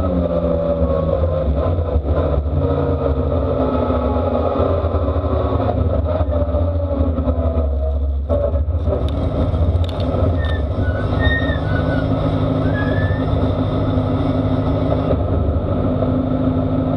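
A vehicle engine running steadily, its pitch shifting slightly.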